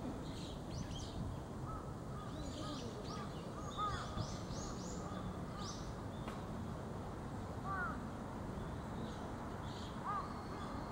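Birds calling outdoors: repeated short arching calls, a run of them a couple of seconds in and more near the end, with higher quick chirps from smaller birds in the first half, over a steady low background noise.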